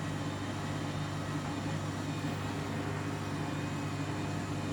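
Candy washing machine on its final spin at 1600 rpm with a load of cottons: the drum turning at full speed gives a steady hum with an even whirring noise over it.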